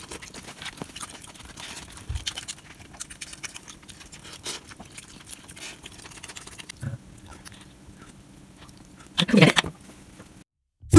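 Close-up eating sounds from a bowl of spicy instant-noodle soup: small irregular clicks of wooden chopsticks and a plastic spoon against a paper bowl, with chewing. A louder, longer eating sound comes near the end.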